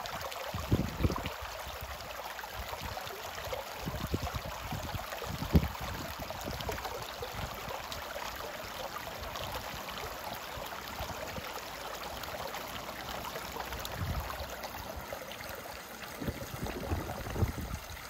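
Shallow stream flowing steadily over stones. A few brief low thumps come through, the loudest about five and a half seconds in.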